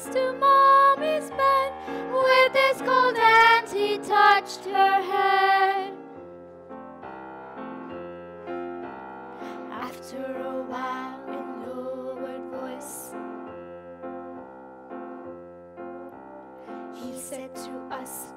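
Opera stage music: piano accompaniment under a loud melody line with vibrato that stops about six seconds in, after which the piano plays on alone, quieter.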